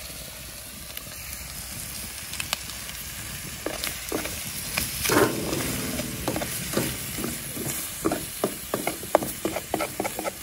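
Chopped bacon and leftover barbecued meat sizzling in a pot on a small alcohol camping stove. From about four seconds in, a metal utensil scrapes and clinks against the pot as the meat is stirred, with the loudest scrape about five seconds in.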